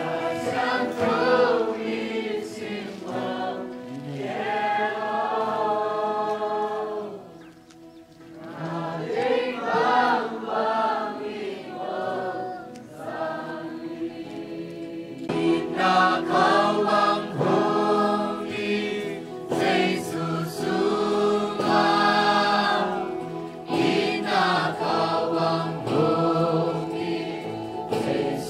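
Choir of voices singing a worship song together in sustained phrases, with a short lull about eight seconds in.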